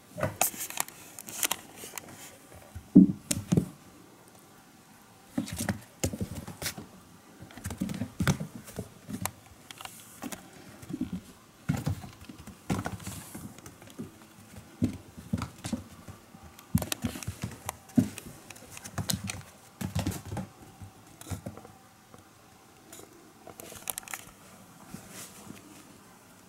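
A kitten scampering and pouncing on tatami mats: irregular taps, scuffs and rustles in short flurries, with brief pauses between them.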